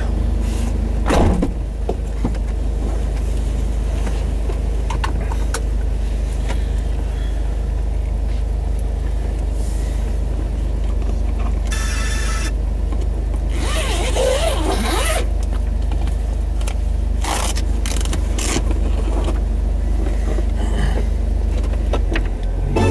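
Jeep's engine running with a steady low hum heard from inside the cabin, with scattered clicks and knocks and a short burst of rustling about two thirds of the way through.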